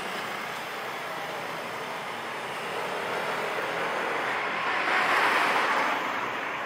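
Street traffic: a steady rush of passing vehicles, growing louder to a peak as a car goes by close about five seconds in, then easing off.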